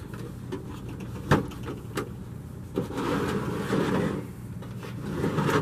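Galoob Palace of Gems hollow plastic playset being handled and turned around on a tabletop: a sharp knock about a second in, then a stretch of plastic rubbing and scraping in the second half.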